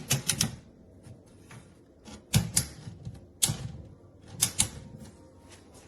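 Sharp clicks and knocks from handling a rolling kitchen island's doors and shelves: a quick run of several at the start, then single or paired knocks about two and a half, three and a half and four and a half seconds in.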